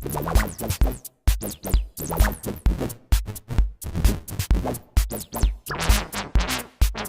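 Electronic jam: a Behringer MS-1 analog monosynth plays a sequenced line with a little reverb and filter sweeps, over Eurorack drums with a steady kick about twice a second and hi-hats.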